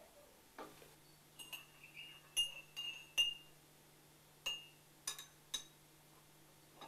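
Metal teaspoon clinking against a ceramic tea cup and saucer: about eight light clinks, several with a short ringing tone, spread over a few seconds.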